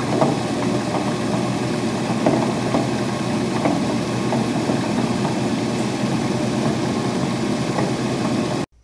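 Hollander beater running with a steady churning drone, with frequent irregular clunks as fabric scraps run into the mechanism while the beater roll is lowered. The clunks are the sign that the roll is getting close enough to beat the fabric, the point at which to lower it more slowly. The sound cuts off suddenly near the end.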